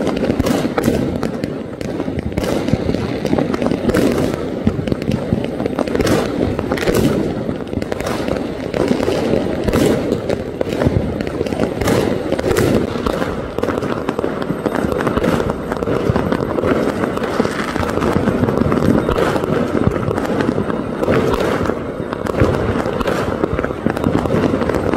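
Many firecrackers bursting in quick, irregular succession, sharp cracks going off several times a second, over a steady loud din of many voices.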